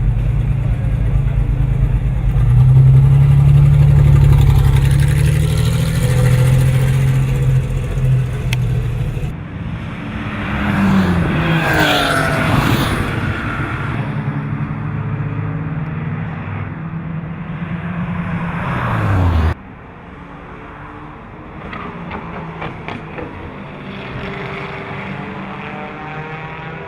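BMW 325i E30's straight-six engine at racing revs, climbing and dropping in pitch through gear changes, in several clips cut together. About two-thirds through the sound cuts off abruptly and returns quieter, still rising and falling.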